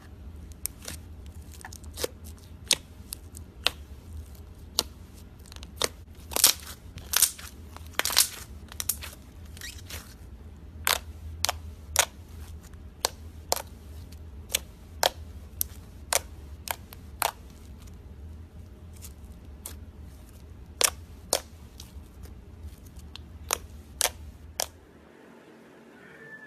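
A run of sharp, irregular clicks and cracks, some in quick pairs or clusters, over a steady low hum that cuts off near the end.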